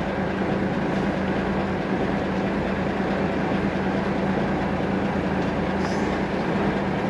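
Fishing boat's engine running with a steady, even hum.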